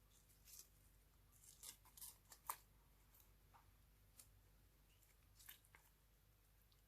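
Faint, crisp clicks and snips from hands working slime-making materials, scattered irregularly, with the loudest about two and a half seconds in.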